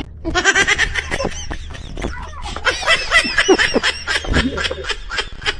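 Laughter in a rapid run of short, closely spaced bursts.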